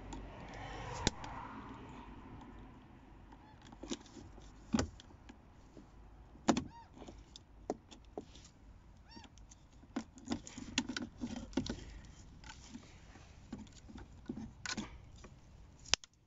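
Plastic window-switch housing being pried out of a VW Passat B6 door armrest trim with a screwdriver: a string of sharp plastic clicks and knocks with short squeaky creaks as the clips give, the sharpest snaps about a second in, midway and near the end.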